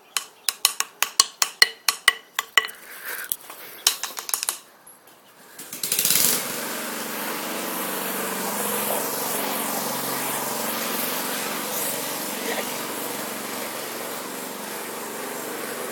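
A quick series of sharp clicks or knocks, about four or five a second, for the first few seconds. Then, about six seconds in, an engine comes in suddenly and keeps running at a steady pace.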